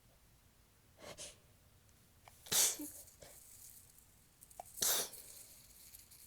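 A woman's soft, tickly sneezes: a fainter catch of breath about a second in, then two sneezes about two seconds apart.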